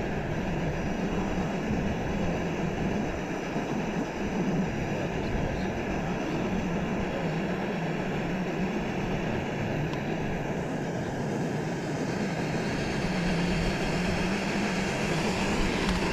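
Four-season gas canister stove burner running steadily at full flame, heating a pot of water towards the boil.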